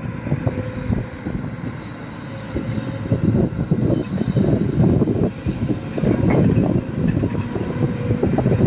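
Sany hydraulic excavator working: its diesel engine runs under load with a dense, irregular clatter and rumble that grows louder a few seconds in.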